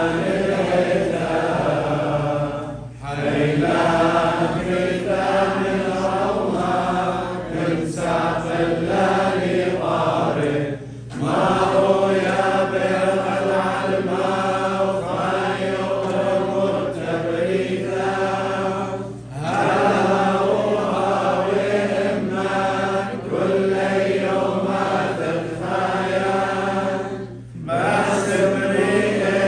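Liturgical chant sung in long phrases of about eight seconds, each broken by a short pause for breath, over a steady low hum.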